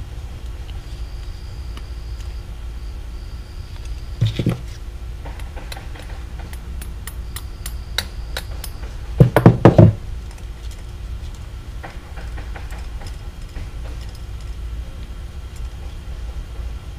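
Small hammer tapping on a Briggs & Stratton lawn mower carburetor during reassembly: a couple of taps about four seconds in, then a quick run of about five louder taps near ten seconds.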